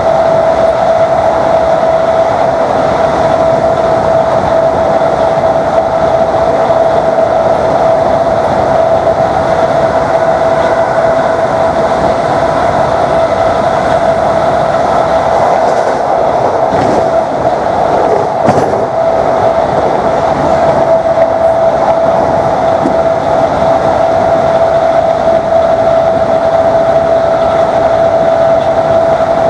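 Class 321 electric multiple unit's traction motors whining at one steady pitch over loud running noise, heard on board at a steady speed. A few knocks from the wheels over track joints a little past halfway.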